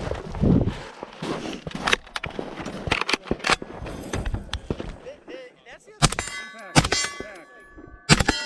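Desert Tech MDRX rifle shots, each followed by the ringing of a struck steel target, three in the last few seconds. Before them, rustling and knocks of gear as the shooter moves.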